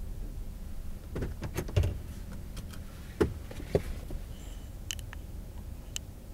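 Car cabin as the car pulls into a parking space and stops: a low engine and road rumble with a run of clicks and knocks from inside the car. A few sharper clicks come near the end.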